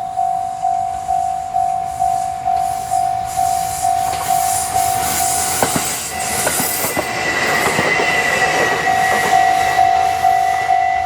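Japanese railway level-crossing warning bell ringing at about two and a half strokes a second as a train passes. The train's wheels clatter over the rails from about four seconds in, and a thin high whine joins about six seconds in.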